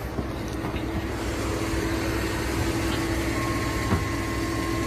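A 1998 GMC pickup's engine cranking over on the starter with a steady whine, not catching. The crew put the no-start down to no spark.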